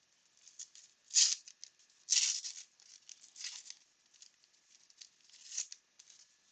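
Crinkling and rustling of a 1989 Upper Deck baseball card pack's wrapper being torn open and the cards handled, in short crisp bursts, the loudest about one and two seconds in.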